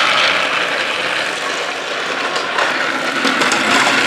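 Battery-powered toy train motor whirring steadily as it runs on plastic track, with a few light clicks of wheels on the track joints in the second half.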